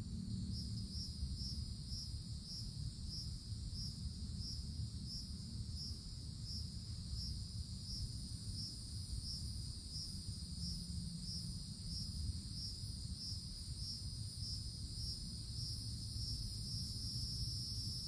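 Cicadas calling in the treetops: a steady high buzz, with a second pulsing call repeating about three times every two seconds that runs together into a continuous buzz near the end. A low rumble sits underneath.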